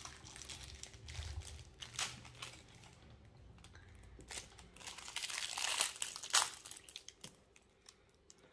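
Crinkling and rustling of plastic fidget toys and their packaging being handled, with scattered sharp clicks; the busiest, loudest rustling comes past the middle.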